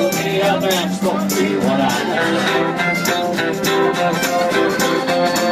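Live country band playing, with acoustic guitars strummed on a steady beat and a melody line over them.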